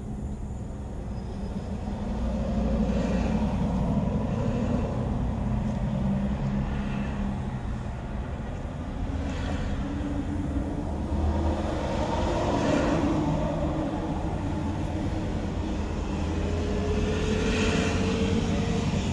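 Traffic passing on a city street: vehicles go by one after another over a steady low rumble, with a faint rising engine note near the end.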